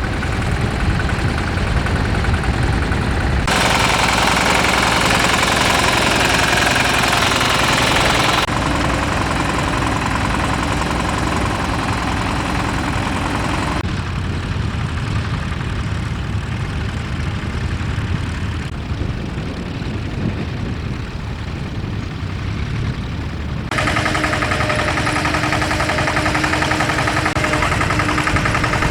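Tractor engines running under load while ploughing, heard in a series of short shots that change abruptly every few seconds.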